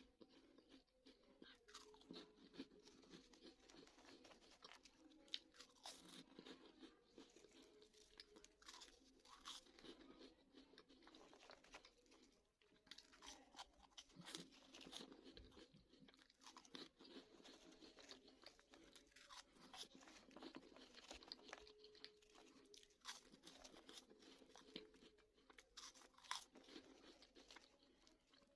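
Crunchy Bozo snack balls being chewed close up, a steady run of dense, irregular crunches.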